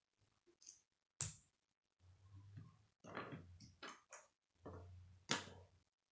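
Plastic K'nex connector pieces tapping and clicking as they are set down on a wooden tabletop: a string of faint sharp taps, the loudest about a second in and near the end.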